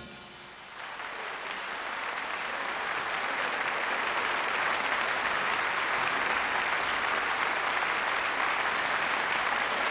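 The last chord of a big band dies away. About a second in, audience applause starts, builds, and then holds as steady clapping.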